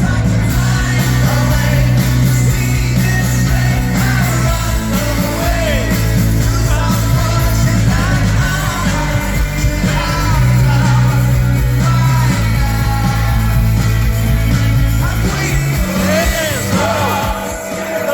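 Live rock band playing, with a lead singer's voice over a loud, steady band; the low bass thins out about sixteen seconds in.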